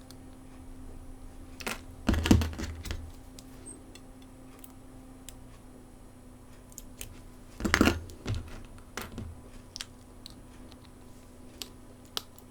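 Small clicks and taps of tools and smartphone parts being handled during a repair, with two louder clattering knocks about two seconds in and again near eight seconds.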